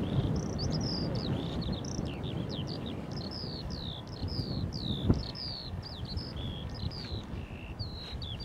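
A songbird singing a continuous run of quick high chirps and downslurred notes, over a low rumble of wind on the microphone, with a single sharp tap about five seconds in.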